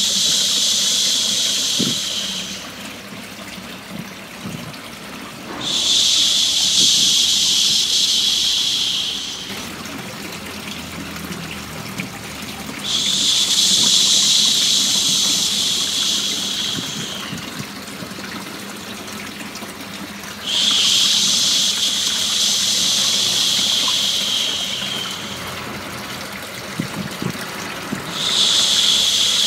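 A long soothing 'shhh' hush of the kind used to settle a baby, repeated about every seven and a half seconds, each one lasting three to five seconds. Steady running water flows underneath.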